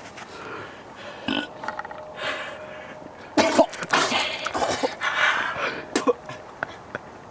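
A man retching and dry-heaving: a run of irregular strained heaves and gags, densest and loudest in the middle.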